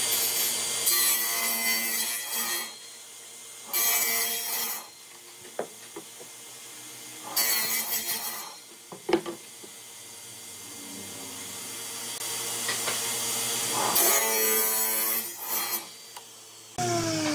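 Table saw with a sliding carriage cutting a wooden panel: the blade runs steadily, and four loud cutting passes of a second or two each break in as the panel is fed through.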